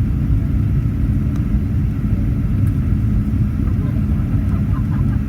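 Steady low rumble inside the cabin of a Boeing 737-800, from its jet engines and the airflow around the fuselage.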